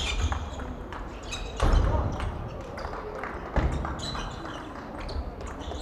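Table tennis rally: the ball clicking sharply off the rackets and the table several times, over dull thuds from the players' feet on the wooden floor. Voices murmur through the hall behind.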